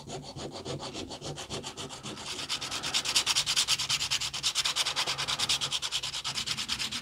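Sandpaper on a wooden sanding block scraping a small wooden model-ship part in quick, regular back-and-forth strokes, getting louder after about two seconds, to sand it down to shape.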